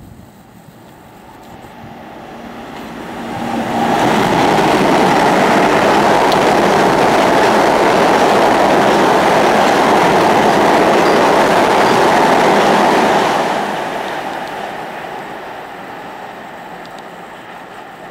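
Long Island Rail Road M7 electric multiple-unit train passing through the station at speed without stopping. The rush of its wheels on the rails builds over about four seconds, stays loud and steady for about nine seconds as the cars go by, then fades as it pulls away.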